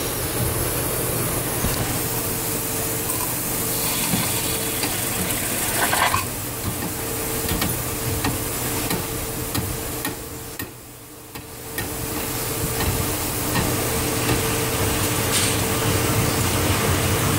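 Steam and hot condensate sizzling and hissing through a Dunham #1 steam trap under test, with the steam on. The sound eases off briefly about eleven seconds in, over a steady low hum.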